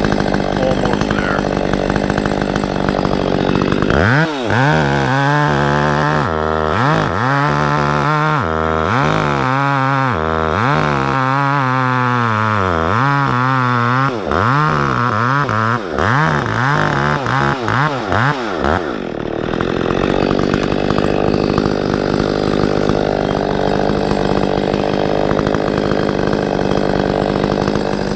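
Echo CS6700 two-stroke chainsaw running hard while bucking a maple log into rounds. From about four seconds in until past halfway, the engine revs repeatedly sag and climb back about once a second, then the saw holds a steady high pitch again.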